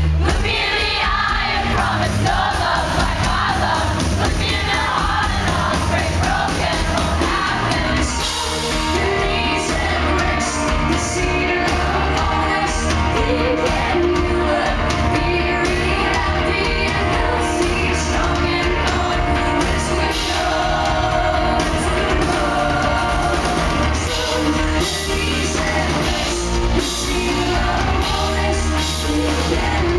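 Live indie-rock song with electric guitars and a woman singing, recorded from the audience, with crowd voices singing and shouting along. The sound grows fuller about eight seconds in.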